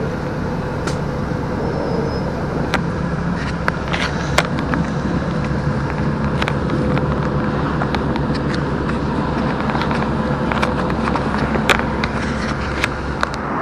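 Steady engine and road noise heard from inside a moving minibus, with scattered small rattles and clicks.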